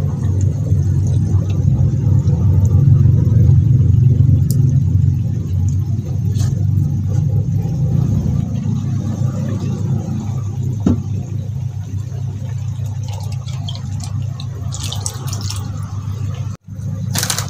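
Steady low machine hum, louder in the first few seconds and easing off, with a few faint ticks.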